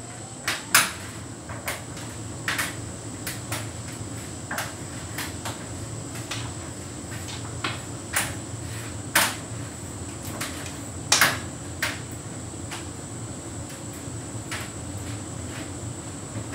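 Hotpoint heat pump tumble dryer running a synthetics cycle: a steady low hum with irregular clicks and knocks as the load tumbles in the drum, the sharpest about a second in and around eleven seconds. A thin, steady high whine sits above it.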